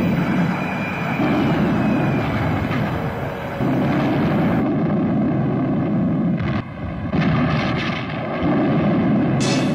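Wartime battle sounds: a heavy low rumble of aircraft engines and artillery coming in surges every couple of seconds, with a falling whistle in the first few seconds and a few sharp cracks about two-thirds of the way through.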